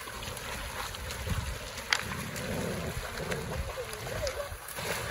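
Shallow stream running over stones, with dogs wading and splashing through it and wind rumbling on the microphone. A sharp click sounds about two seconds in.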